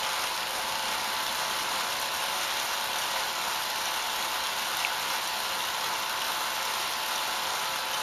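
Road bike on an indoor stationary trainer, its rear wheel and roller spinning in a steady whir with a faint hum as the rider pedals.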